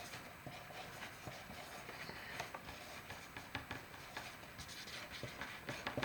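Faint scattered scratches and light taps of markers writing on small whiteboards in a quiet room.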